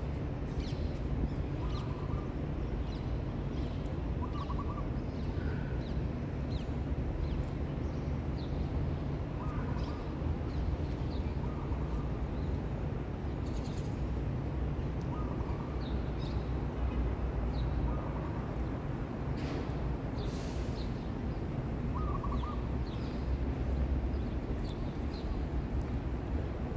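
Birds chirping in short calls every second or two over a steady low background rumble.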